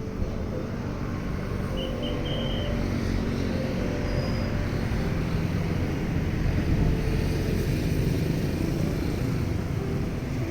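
Steady low engine rumble, swelling slightly past the middle, with a few faint short high tones about two seconds in.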